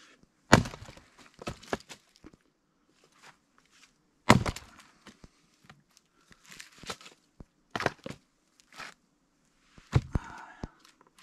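Fiskars splitting axe chopping through firewood logs: four sharp chops about three to four seconds apart, the first two the loudest, each followed by smaller knocks as the split pieces fall.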